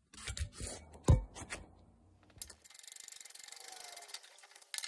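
Hand ratchet wrench clicking rapidly and evenly for about two seconds as a small bolt holding the engine's sheet-metal tin work is backed out. Before it come a few clunks of metal parts being handled, one sharp knock about a second in.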